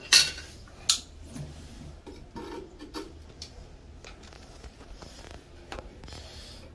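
Metal hand tools clinking as locking pliers are set on a copper tub-spout pipe fitting. There is a sharp click just after the start and another about a second in, then lighter scattered clicks and rubbing.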